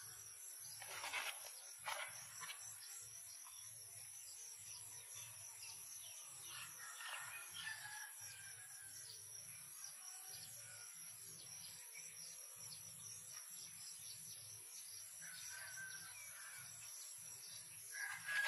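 Rural outdoor ambience: insects trilling steadily at a high pitch, with scattered bird chirps and a couple of brief louder rustles or knocks about one and two seconds in.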